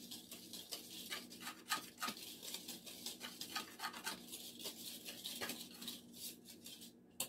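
Wire balloon whisk stirring dry flour mixture in a ceramic bowl: a run of light, scratchy strokes of the wires through the flour and against the bowl, about three a second, stopping just before the end.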